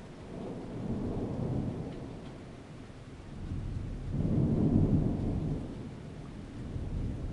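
Rolling thunder: a low rumble that swells and fades three times, loudest about four to five seconds in.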